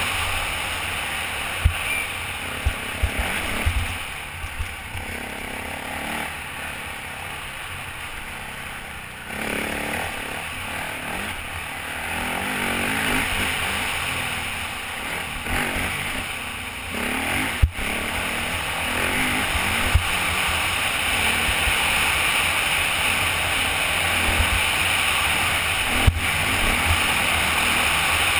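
Off-road motorcycle running fast along a dirt trail, heard through heavy wind rush on a helmet-mounted camera, with a few sharp knocks. The sound eases off for a few seconds about a quarter of the way in and builds again after the middle.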